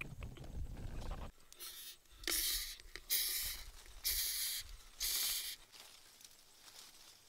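Captured rhinoceros beetles giving five short hissing bursts, about one a second, the stridulation they make when handled. A low rumble comes before them, in the first second.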